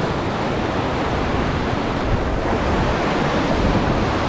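Steady rush of whitewater from a river running high in flood, heard close up from a raft on the rapids.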